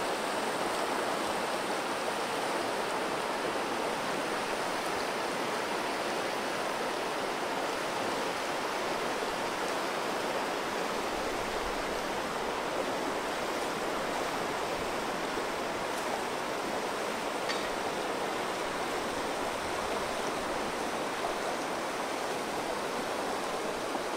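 River water rushing over rock ledges and small rapids, a steady, even rush.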